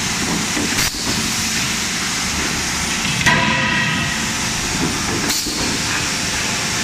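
Forging-shop machinery noise: a steady, loud hiss, with a short knock about a second in and a ringing metal clank about three seconds in.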